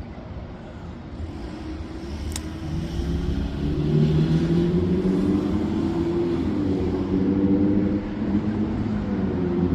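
A road vehicle's engine with a low rumble, growing louder about three seconds in and staying loud. A single sharp click sounds a little over two seconds in.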